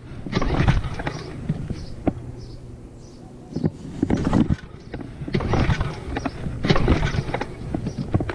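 Recoil pull-starter of a new Tohatsu 6 hp outboard yanked several times, each pull a short rasping whir of cord and flywheel, on its first startup. The engine does not catch between pulls.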